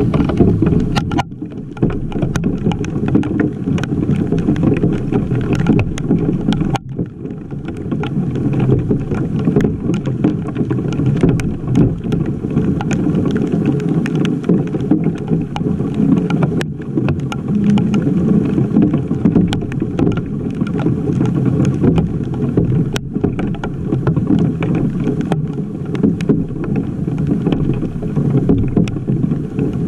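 Hailstorm pelting down: a dense, muffled rush of falling hail and rain, broken all through by sharp ticks of hailstones striking close to the camera.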